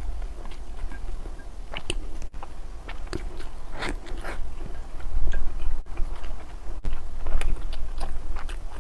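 Close-miked eating: biting and chewing food, with irregular short crunches and mouth clicks.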